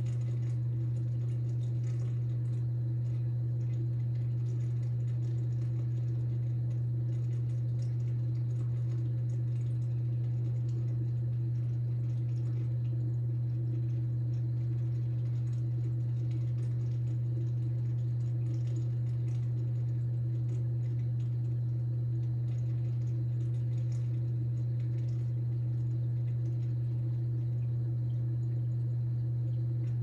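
Reef aquarium's pumps and filtration running: a steady low hum with a fainter, higher hum above it.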